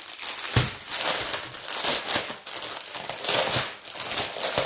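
Stack of small plastic bags of diamond-painting drills crinkling as they are handled and shuffled, an irregular rustle throughout.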